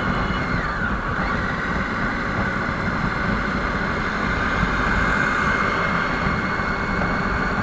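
Triumph Tiger XRx's 800cc inline-three engine running steadily while riding, with road and wind noise; its pitch dips briefly about half a second in. The engine is held below 5,000 rpm while it is being run in.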